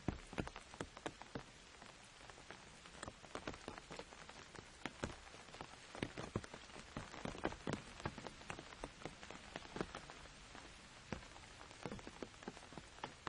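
Rain falling on an umbrella: a steady light hiss with many irregular, sharp drop taps on the canopy.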